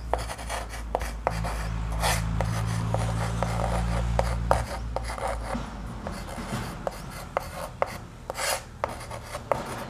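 Chalk writing on a blackboard: scratchy strokes and short sharp taps as the chalk moves and strikes the board. A low steady hum sounds for a few seconds in the first half.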